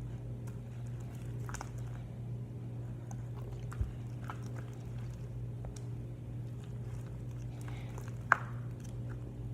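Homemade glitter slime being stirred in a bowl as it thickens: soft sticky, wet clicks and squelches over a steady low hum, with one sharp click about eight seconds in.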